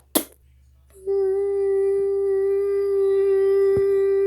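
A single steady pitched tone, held at one unchanging note for about three and a half seconds, starting about a second in and stopping abruptly.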